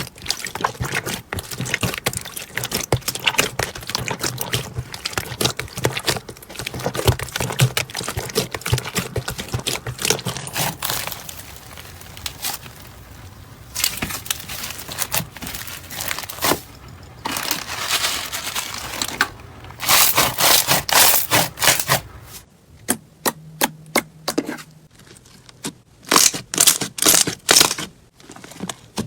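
Hands squeezing and poking slime, making a dense run of crackling, popping clicks with wetter scraping stretches. Near the end the sound thins out into separate sharp pops.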